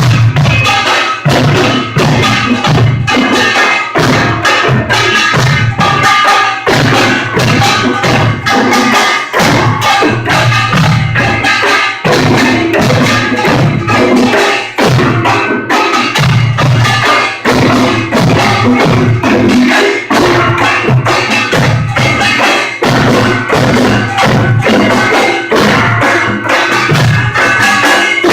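Korean pungmul percussion ensemble playing a fast, driving rhythm: clanging small gongs over janggu and buk drum beats. The sound is loud and distorted as picked up by a phone's microphone.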